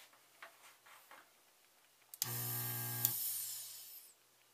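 Electric desoldering tool's vacuum pump buzzing for about a second as it draws molten solder off a capacitor lead on a circuit board, its suction hiss trailing off over the following second. A few light taps and clicks from handling the board come before it.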